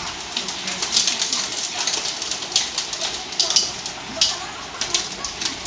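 Hailstorm: hailstones clattering down in many sharp, irregular hits over a steady hiss of falling hail and rain.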